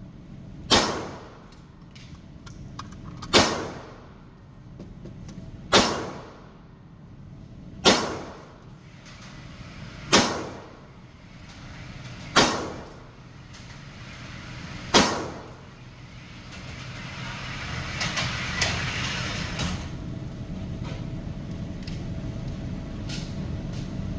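Gunshots fired one at a time in slow, deliberate fire: seven shots about two to two and a half seconds apart. A steady rushing noise follows the last shot and grows louder toward the end.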